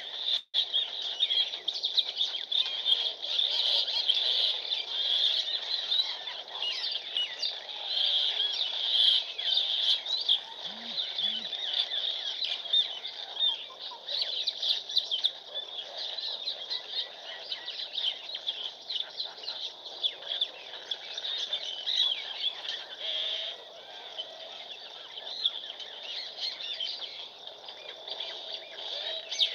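A dense chorus of many small birds chirping and twittering at once, short high calls overlapping without a break. The sound cuts out for an instant about half a second in.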